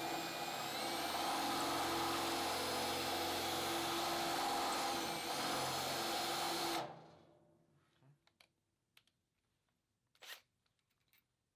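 Power drill running in reverse, boring out a stripped screw head with the bore side of a No. 2 Speed Out cobalt extractor. The motor runs steadily for about seven seconds and stops suddenly, followed by a few light clicks.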